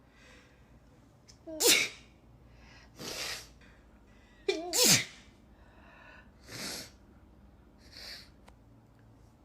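A woman sneezing: two loud, voiced sneezes about three seconds apart, with softer breathy sounds before, between and after them.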